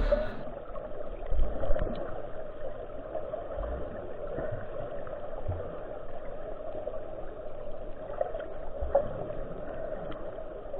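Muffled water sound with a steady hum and a few faint clicks and low thumps, dull and lacking any high end.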